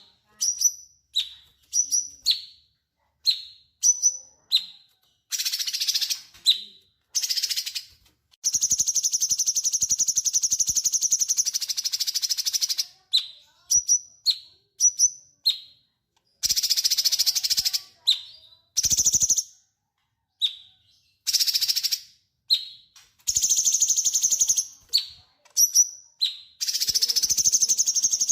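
Cucak cungkok songbird singing loudly and close: a string of short, sharp high calls, each dropping in pitch, broken up by long harsh rattling trills, the longest about four seconds.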